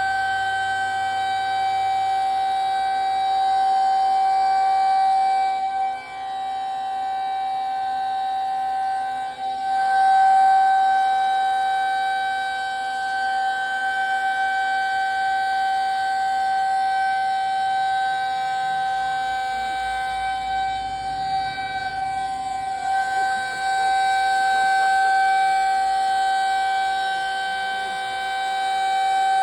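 Federal Signal 2001 rotating electromechanical tornado siren sounding a steady single tone, very loud from directly beneath it. Its loudness swells and dips every several seconds.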